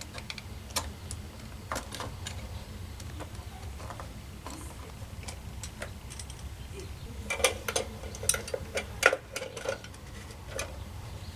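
Scattered light metallic clicks and taps of small parts being handled, with a quick run of louder clicks from about seven to ten seconds in, over a steady low hum.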